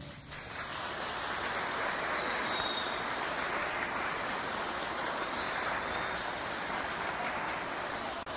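Audience applauding, a dense, steady clapping that starts as the music ends and cuts off abruptly near the end.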